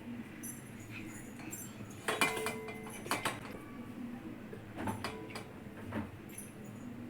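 Kitchen dishware and utensils clinking and knocking lightly. A cluster of ringing clinks comes about two to three seconds in, and a few single knocks follow around five and six seconds.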